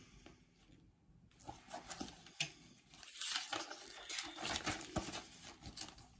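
Irregular rustling with scattered soft clicks and taps, handling noise close to the microphone, starting about a second and a half in.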